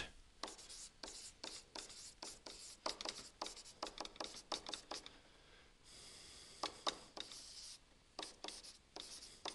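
A stylus scratching and tapping on a tablet surface while handwriting, faint: quick runs of short strokes, one longer continuous scratch about six seconds in, then a few more strokes near the end.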